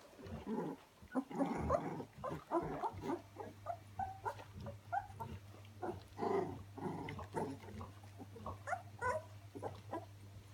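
A litter of 18-day-old puppies squeaking, whimpering and grunting as they crawl over one another, many short high calls overlapping, busiest in the first half.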